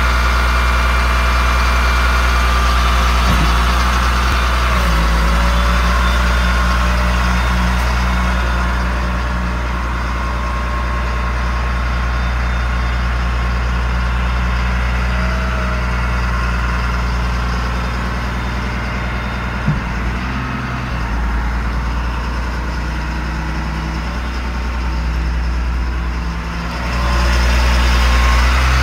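Chevrolet C6500 medium-duty truck's engine idling steadily, with one sharp click about two-thirds of the way through. The idle grows louder near the end.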